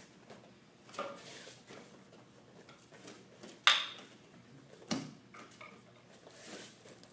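A wooden bo staff knocking and clattering as it is worked through a karate form: three sharp knocks, the loudest a little past halfway.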